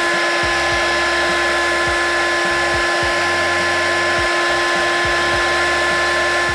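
Handheld heat gun blowing steadily, a rush of air with a constant whine from its fan, shrinking heat-shrink tubing over a soldered ESC.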